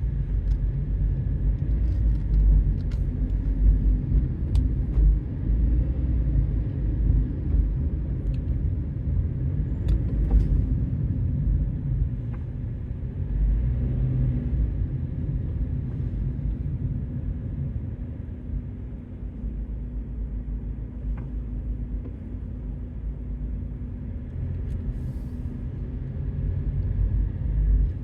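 A car being driven, heard from inside the cabin: a steady low rumble of road and engine noise that swells and eases, with a few faint ticks.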